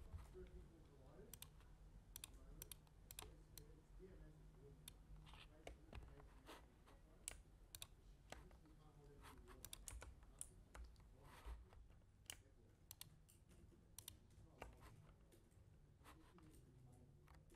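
Faint, irregular clicks from a computer keyboard and mouse, about one or two a second.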